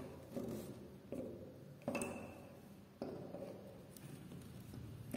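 Side cutters gripping and levering small nails out of a wooden door frame: four faint clicks and scrapes, about a second apart.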